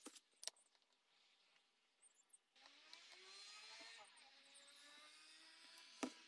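Quiet workshop handling: a few light knocks as wooden strips and a glue bottle are handled on the bench, the clearest one near the end. From about two and a half seconds in, a faint mechanical hum with a slowly rising pitch runs underneath.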